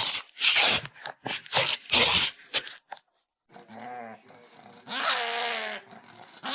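A dog vocalizing: a quick run of short, rough sounds about two a second, then after a brief break longer, wavering pitched sounds.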